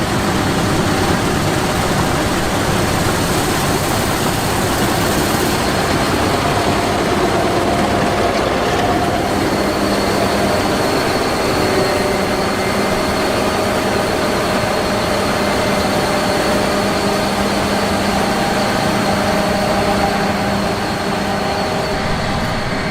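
Combine harvester's diesel engine and machinery running steadily at a constant pace, with a thin high whine joining in about nine seconds in.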